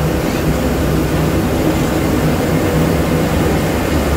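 Inside the cab of a moving bus: its engine running steadily at cruising speed with a constant low hum, over road noise from the tyres.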